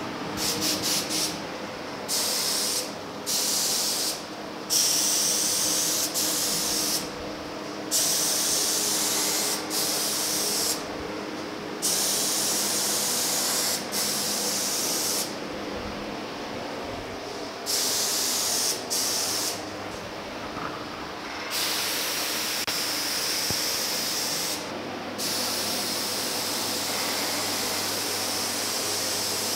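Gravity-feed compressed-air spray gun spraying etching primer in repeated passes: a loud hiss that starts and stops with each trigger pull, with short pauses between passes and an unbroken pass over the last few seconds.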